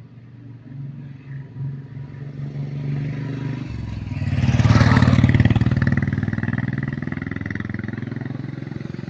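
A motor vehicle driving past: its engine grows louder to a peak about halfway through, then fades away.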